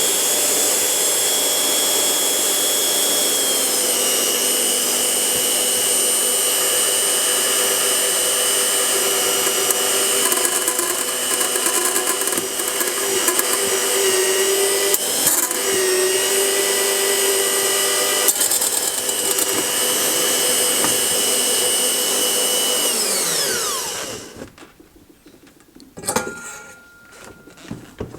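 Electric drill motor running at a steady whine while boring holes through clamped stainless steel liner stock, its pitch dipping slightly midway under load. It winds down about twenty-four seconds in, and a single sharp knock follows near the end.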